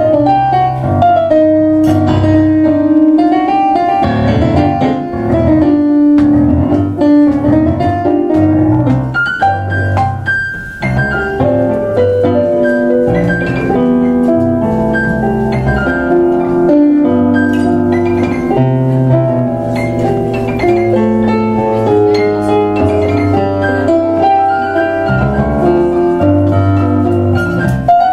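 Two digital pianos, one a Kawai MP6 stage piano, playing a tango as a duet: a melody over low bass notes, with no break.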